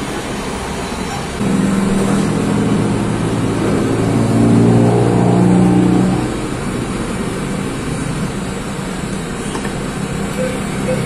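A motor vehicle's engine running over steady background noise. It gets louder and its pitch shifts about a second and a half in, then it drops back about six seconds in.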